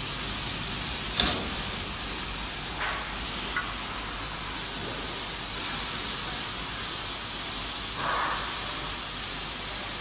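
Vertical flat-glass washing machine running: a steady hiss, with one sharp clank about a second in and a few lighter knocks later.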